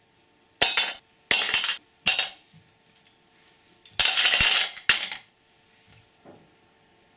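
A series of sharp metallic clatters and clinks, like small tools or parts being handled and set down on a workbench. There are about four short ones in the first two and a half seconds, then a longer rattling one about four seconds in that lasts about a second.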